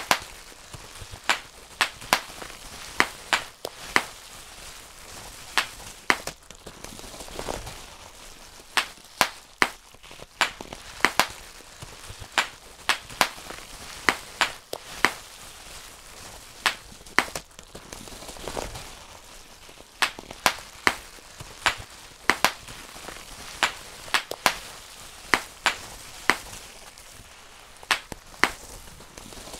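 Bubble wrap being popped one bubble at a time by hand: sharp single pops at an irregular pace of about one or two a second, with soft crinkling of the plastic sheet between them.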